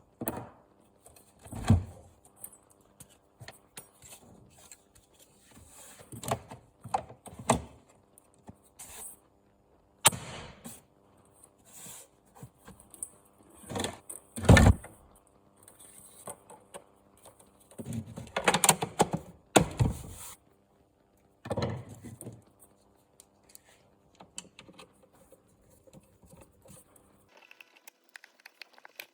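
Irregular knocks and thumps of objects being handled and set down on a hard surface, in about eight separate bouts, the loudest about halfway through.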